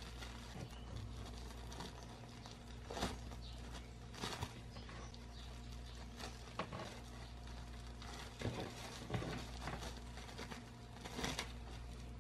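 Plastic cling film crinkling and rustling in short irregular bursts as hands fold it around a slab of cookie dough and press it flat, over a faint steady hum.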